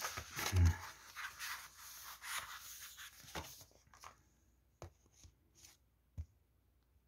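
Paperback book pages being turned and handled: paper rustling and sliding for about three and a half seconds, followed by a few separate soft flicks and taps as the pages settle. A brief vocal sound comes in just before the first second.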